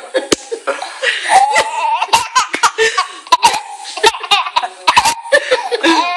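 A baby laughing in short repeated bursts, with an adult woman laughing along. Sharp clicks or pats come irregularly throughout, several a second.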